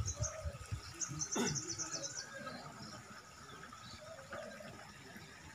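Open-air ambience with faint distant voices. About a second in there is a quick run of high chirps, and a brief falling whoosh.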